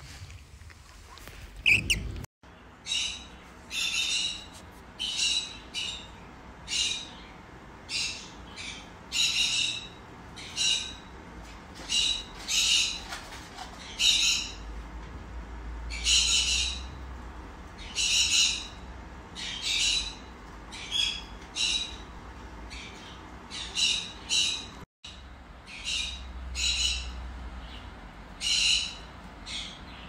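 A parrot calling over and over in short, harsh squawks, about one a second.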